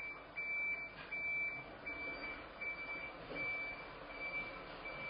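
A Mercedes-Benz van's reversing alarm beeping steadily as the van backs up: one high tone repeating about every three-quarters of a second, growing fainter after the first few beeps as the van moves away.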